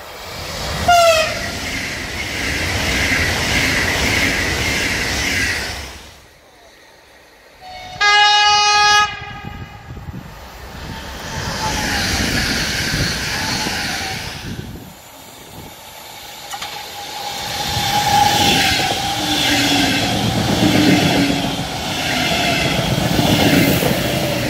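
Three electric passenger trains pass at speed one after another, with wheel and rail rumble: first a PKP Pendolino high-speed train, with a short falling tone about a second in; then a steady horn blast of about a second, followed by a Koleje Mazowieckie Elf electric multiple unit going by. Last, a Koleje Mazowieckie EU47 electric locomotive passes with a steady whine over the rumble.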